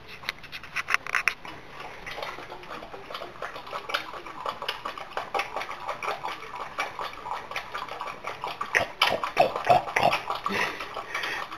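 Dog snuffling close up: a rapid run of short clicks and sniffs, sparse at first and then busier and louder.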